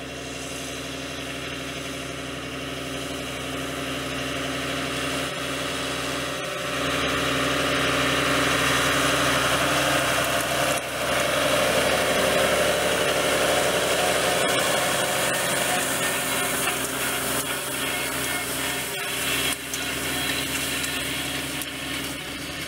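Fiat 110-90 tractor's diesel engine running steadily under load while pulling a Claas Liner 470 S rotary hay rake, with the rake turning behind it. It grows louder as the tractor comes close, is loudest in the middle, and eases off a little near the end.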